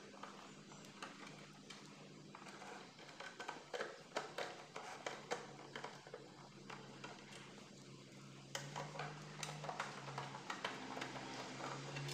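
Screwdriver backing out the small screws of a mini amplifier's sheet-metal case: faint, irregular metallic clicks and scrapes, over a steady low hum.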